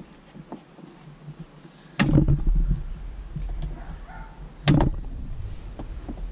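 Plastic windshield-cowl retaining clips being worked loose with pliers: two sharp snaps about two and a half seconds apart, with fainter clicks of the tool against the cowl and a low rumble between them.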